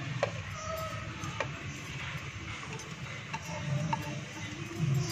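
A few light clicks and taps as chopped coriander, mint and green chillies are scraped off a ceramic plate into a plastic chopper jar, with the plate rim knocking the jar, over a low steady hum.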